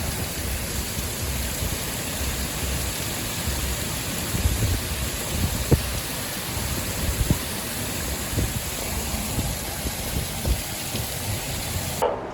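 Steady rain falling, an even hiss with some uneven low rumble underneath.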